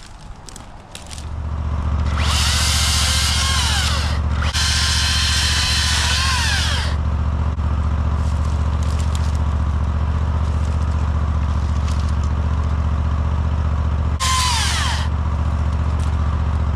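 A vehicle engine starts up about a second in and then runs steadily with a low, even drone. Three separate bursts of high squealing, each sliding down in pitch, come over the top of it.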